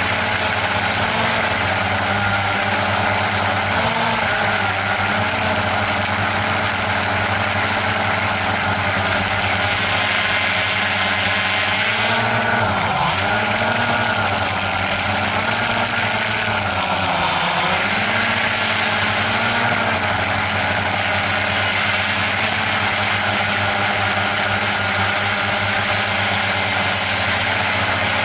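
A drone's motors and propellers whining steadily, with the pitch dipping and rising several times as the motors change speed.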